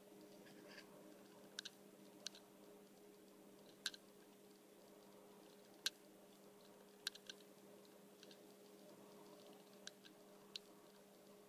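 Raccoon eating from a plate: faint, irregular sharp clicks and crunches of chewing, about a dozen spread over the stretch, over a low steady hum.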